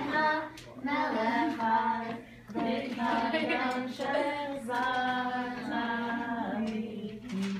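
Children singing a song together, in phrases of long held notes with brief breaks between them.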